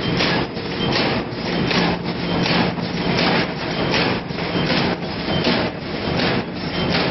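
Automatic stand-up zipper pouch bag making machine running: a steady hum under a regular clacking about three times a second as the machine cycles.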